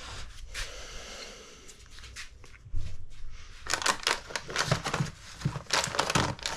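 Handling noises: irregular clicks, knocks and rustles of parts and tools being moved about on a workbench. They are sparse at first and get louder and busier from about halfway through.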